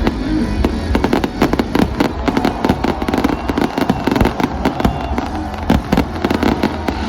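Fireworks going off in a rapid, dense string of bangs and crackles, thickest in the middle.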